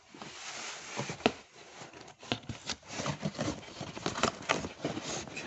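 Cardboard shipping box being torn open and handled by hand: a tearing rush of cardboard and packing tape, then irregular crackles and snaps of cardboard and paper, the sharpest just over a second in.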